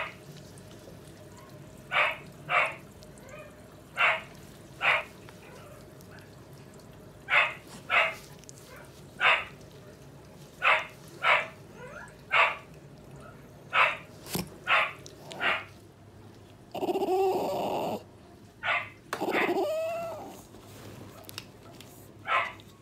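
Bichon Frise barking in short, sharp yaps, often in pairs, every second or two. Near the end come two longer drawn-out cries that fall in pitch.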